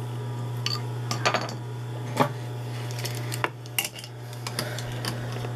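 Scattered light metal clicks and taps of a screwdriver and fittings being handled on an industrial walking-foot sewing machine's presser-foot mechanism, over a steady low hum.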